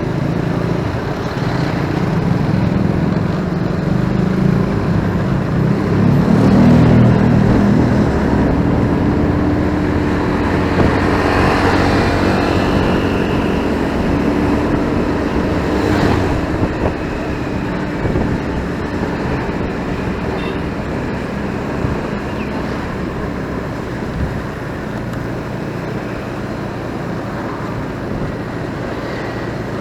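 Motorcycle riding along a city street: its engine and road noise with surrounding traffic, loudest around seven seconds in and easing slightly in the second half.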